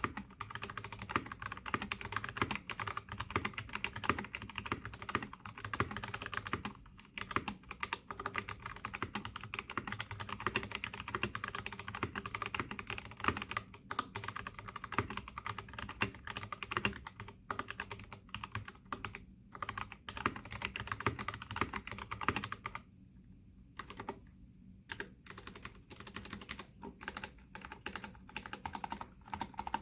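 Typing on a Keydous NJ68 mechanical keyboard with Kailh Box Brown tactile switches and dye-sublimated PBT keycaps: a fast, dense run of key clacks. There are a few short pauses, the longest about two seconds, about three-quarters of the way through.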